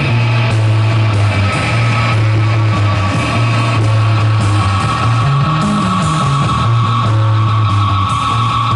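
Live rock band playing loud, distorted electric guitar over a steady low bass note, with a high tone held throughout; no singing.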